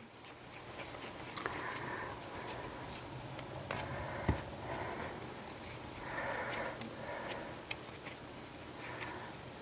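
Soft rustling and light pats of hands handling and shaping yeast dough balls on a floured countertop, with a few small clicks, the sharpest about four seconds in.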